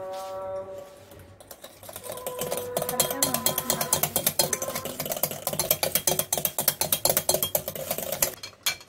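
Egg batter being beaten by hand in a glass bowl: a metal utensil clicks rapidly against the glass, about six or seven strokes a second, starting a second or so in and stopping just before the end.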